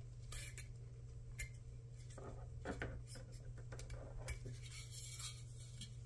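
Faint, scattered light clicks and rubbing as a plastic PC fan and its mounting clip are worked onto the metal fin stack of a Cooler Master tower CPU cooler. The clip seats in the groove without a snap.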